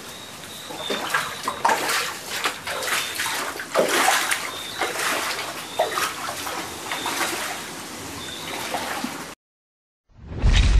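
Floodwater splashing and gurgling: a steady wash of running water with frequent splashes, and a faint high chirp repeating over it. About nine seconds in it cuts off to silence, and a sudden loud boom follows near the end.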